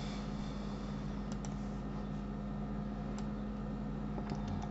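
A few faint, sharp computer keyboard and mouse clicks over a steady low electrical hum.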